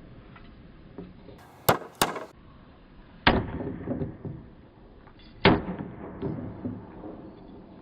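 Hammer blows on a nail: two sharp strikes close together, then two heavier blows each followed by a short low rumble.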